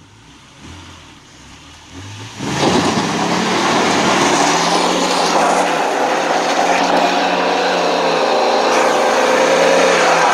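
Nissan Xterra engine idling with a couple of short throttle blips. About two and a half seconds in it is suddenly floored into a burnout, the engine held at high revs with the rear tyres spinning and squealing, loud and sustained.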